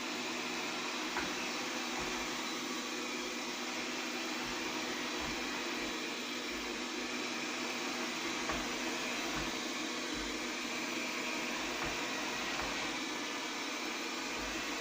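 Mi Robot Vacuum-Mop P running: a steady whir of its suction fan and motors, with a few faint low thuds.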